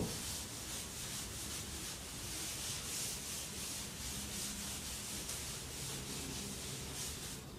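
Chalkboard eraser rubbing across a chalkboard in quick, repeated back-and-forth strokes, wiping off chalk writing.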